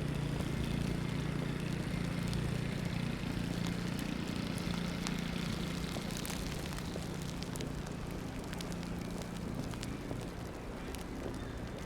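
Snowy city-street ambience: a steady low hum of traffic, with scattered light crackles over it.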